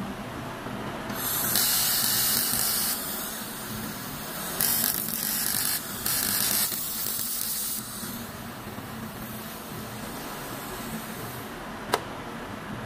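Short bursts of hissing from a TIP TIG torch, argon gas blowing through it for a second or so at a time, three or four times, over a steady low hum. A single sharp click just before the end.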